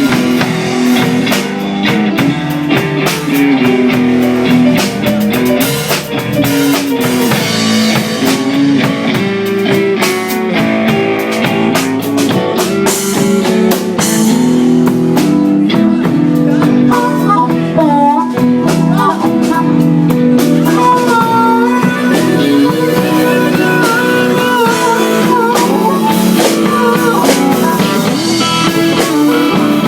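A band playing at a sound check, with guitar and drums, and a lead line wavering above the chords in the second half.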